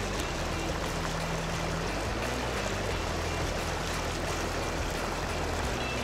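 Shallow river water flowing steadily around a wading angler's legs, a continuous even rush of current.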